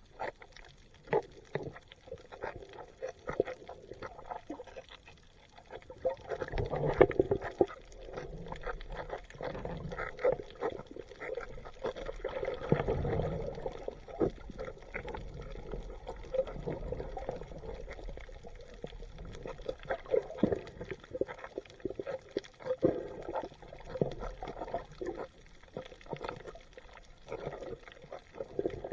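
Water gurgling and trickling, with many irregular small clicks and crackles.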